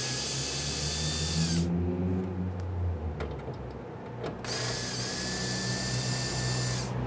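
Power drill spinning out the sheet-metal screws of a welder's case in two runs of about two seconds each, a steady whine that stops briefly between them. A low traffic rumble runs underneath.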